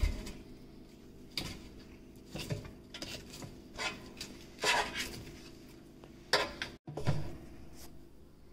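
A metal fork scraping and clinking against a nonstick air fryer basket while turning battered cauliflower florets: a dozen or so irregular short scrapes and taps.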